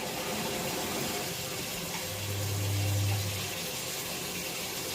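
Water running steadily from an opened tap, turned on to make the faulty combi boiler fire for hot water. A low hum joins about two seconds in and lasts about a second and a half.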